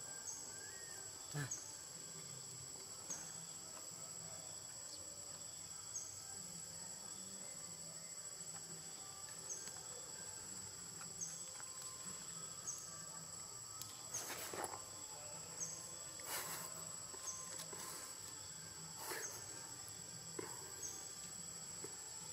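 Steady high-pitched shrill of an insect chorus, with a short chirp repeating about every second and a half. A few brief sharp sounds break in during the second half.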